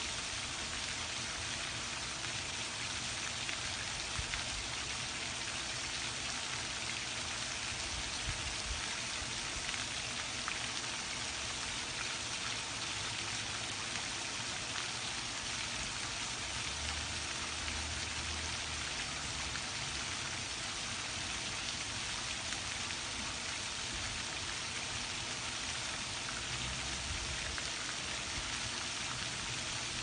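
Steady, even hiss of falling or running water, with a couple of brief low rumbles a little past halfway and near the end.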